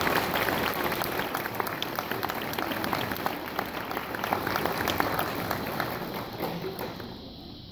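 Audience applauding, with many hands clapping, dying away near the end.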